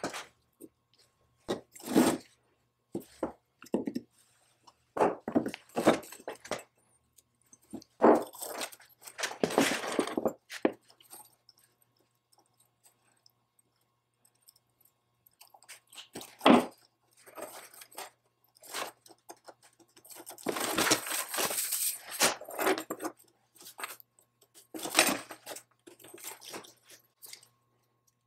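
Light metallic clicks and jingles of a small brass chain being handled and hooked onto a cast-iron belt lacing machine. The sounds come in scattered bursts, with a quiet stretch near the middle and a longer rattle past the two-thirds mark.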